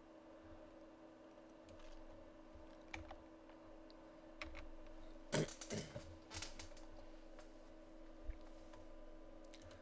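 Faint computer keyboard and mouse: a handful of separate key presses and clicks, most of them around the middle, over a steady low electrical hum.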